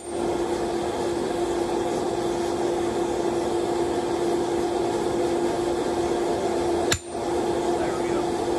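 Hand hammer striking a handled eye punch set on hot steel on the anvil: one blow at the very start and another about seven seconds in, over a steady mechanical drone.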